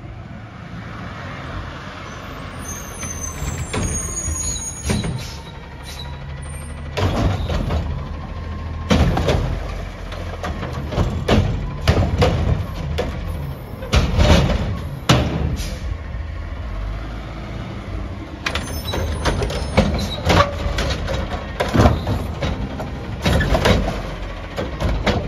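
Front-loading garbage truck pulling up with its diesel engine running and a high brake squeal a few seconds in. Its automated front arm then grabs and lifts a recycling cart, with many loud metallic clanks and bangs from the arm, cart and front bin.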